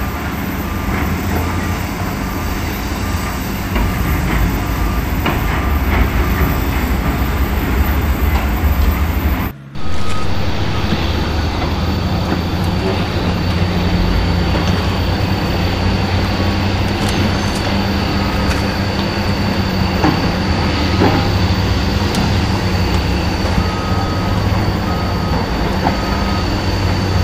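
Heavy diesel engines of dump trucks and earthmoving machines running steadily, with a reversing alarm beeping in an even rhythm on and off. The sound breaks off briefly about ten seconds in.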